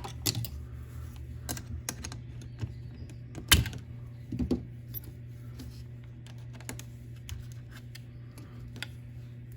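Small plastic and metal parts of a 1/14 RC car's rear suspension clicking and clinking as they are handled and fitted, with scattered irregular clicks, the loudest about three and a half seconds in, over a steady low hum.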